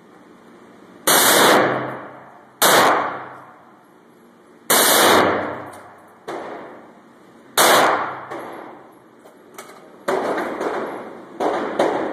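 FN SCAR rifle firing short full-auto bursts: about five bursts a second or two apart, each about half a second long and trailing off in echo, then a quicker string of shots near the end.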